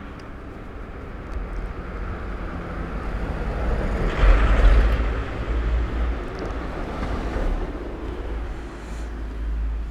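Outdoor traffic noise: a vehicle passes, its rumble and tyre hiss swelling to a peak about halfway through and then fading.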